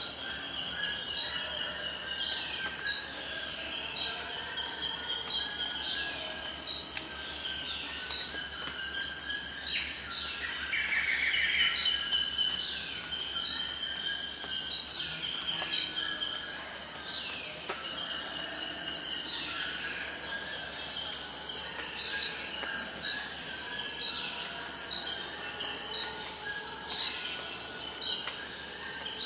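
Rainforest ambience: a steady high-pitched insect drone, with toucans giving short falling calls repeated every second or two.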